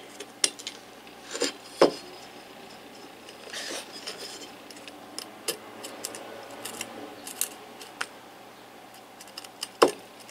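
Thin steel pick scraping and prying hardened insect nest out of an electric planer's metal housing: irregular scrapes, crumbling and sharp metallic clicks. The loudest clicks come about two seconds in and near the end.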